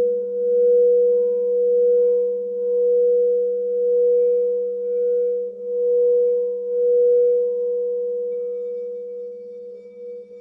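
Quartz crystal singing bowl sounding a sustained pure tone, with a fainter lower tone beneath, swelling and dipping in a slow pulse about every second and a half. Near the end the tone fades and grows unsteady.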